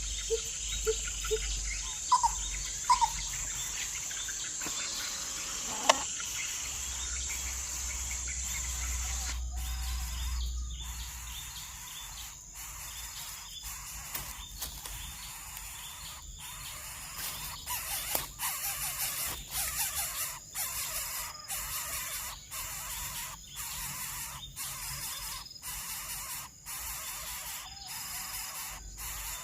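Outdoor bird ambience: short bird chirps over a steady high hiss that drops away about nine seconds in, followed by scattered brief chirps and ticks.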